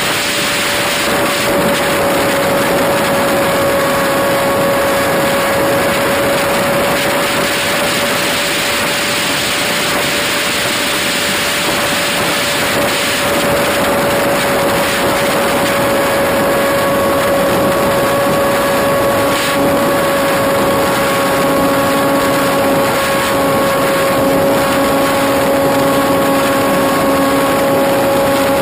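Modified Rossi .45 two-stroke glow engine on a Quickie 500 RC plane running in flight, a steady high-pitched whine that barely changes pitch, with wind rushing over the onboard camera.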